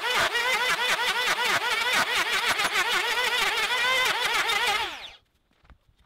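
Corded electric hand planer cutting across the end grain of a wooden stump. Its motor whine dips and rises several times a second as the cutter head bites, then stops about five seconds in.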